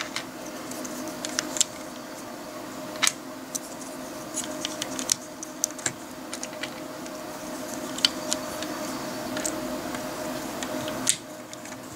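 LEGO slope bricks clicking and rattling as they are handled and pressed onto a model: scattered light clicks, several of them sharper, over a steady faint hum.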